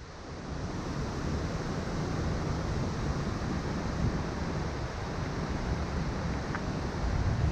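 Steady rush of fast-flowing mountain stream water, swelling in over the first second or so.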